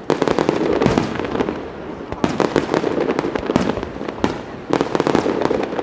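Aerial fireworks bursting in quick volleys of many sharp bangs and crackles. There are three clusters of rapid reports: one at the start, one about two seconds in and one near the end.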